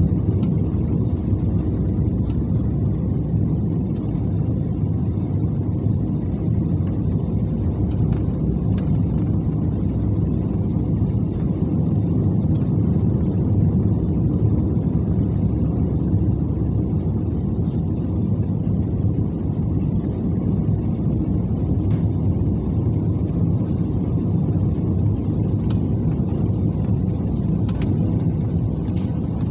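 Cabin noise of a Super Air Jet Airbus A320-family airliner on its landing approach: the steady low rumble of the jet engines and the airflow over the fuselage, heard from a window seat over the wing.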